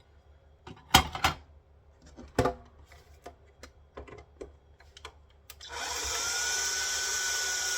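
A few sharp knocks and clicks from handling metal parts, then, past halfway, a small power tool starts and runs steadily with a high whine.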